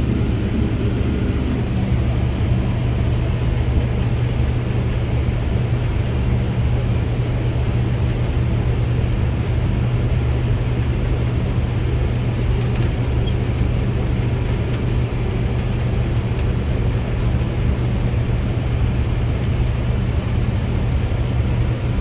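Case IH combine running steadily at working speed while its unloading auger empties the grain tank, heard from the cab as a constant deep engine hum.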